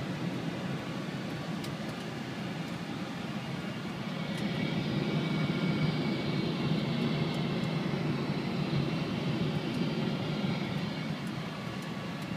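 Flight-deck noise of a Boeing 747-400 on final approach: a steady rush of airflow with engine sound. It grows louder about four seconds in, with a faint high whine mixed in, and eases again near the end.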